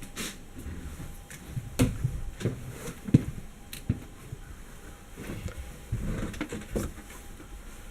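Irregular knocks, clicks and low thumps, a dozen or so scattered over several seconds, the sharpest about two and three seconds in, over a faint steady hum.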